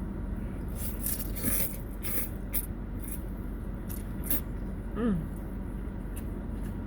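Close mouth sounds of eating pho noodles: a run of wet smacking and slurping clicks, then a short falling "mm" about five seconds in, over a steady low hum.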